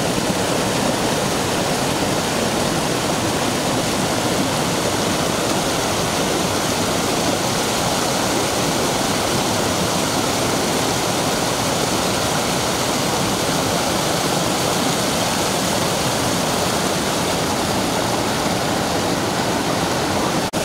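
Rocky mountain stream rushing steadily over boulders and small cascades.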